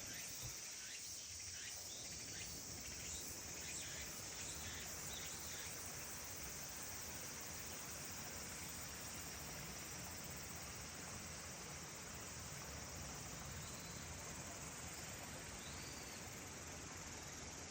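Faint, steady high-pitched insect chorus over an even rushing hiss of running water from a small mountain stream, with a few short chirps near the end.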